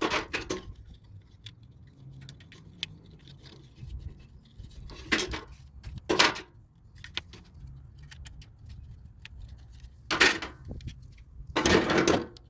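Small plastic parts and tools being handled, clattering and rattling in several short bursts, the loudest near the end, while the plastic clips are moved from one dryer door part to another.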